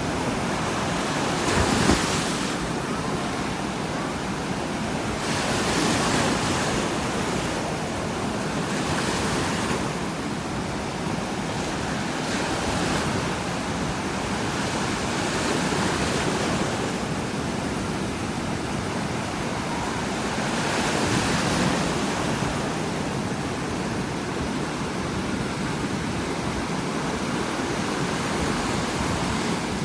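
Heavy ocean surf: waves breaking and crashing on the beach one after another, each a swelling rush of hiss and rumble every few seconds, the loudest about two seconds in.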